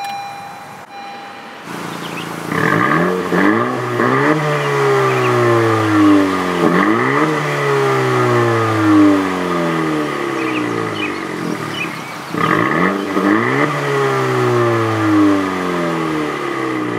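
2017 Honda Civic Si's 1.5-litre turbocharged four-cylinder engine revved through its centre-exit exhaust, heard from behind the car. There are several quick throttle blips, each rev climbing sharply and falling back slowly toward idle.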